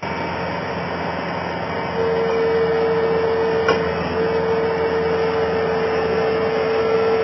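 Skid steer running steadily. About two seconds in it grows louder and a steady whine joins, breaking off briefly near the middle, with a single sharp click.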